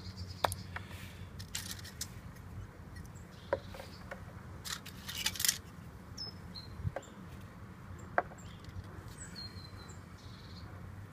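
Scattered light clicks and clinks of small aluminium relics set down into a plastic tub of oxalic acid solution, knocking against each other and the tub, with small splashes of the water. A low steady hum runs underneath.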